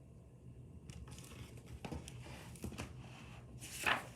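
Paper pages of a picture book rustling and crinkling as it is handled and turned, with one louder page rustle near the end.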